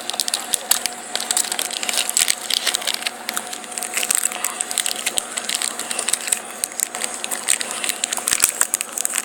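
Kit Kat candy wrapper crinkling and crackling in many quick, irregular bursts as the bars are worked out of it.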